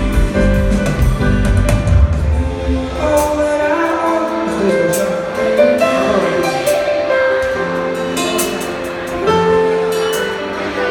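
Live band playing a slow song with a male singer's voice over it; the heavy bass and drums ease off after about three seconds, leaving lighter sustained chords under the vocal line.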